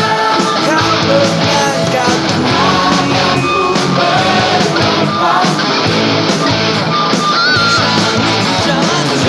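Lead guitar playing the song's melody over a full rock-band backing track, with a wavering, bent note near the end.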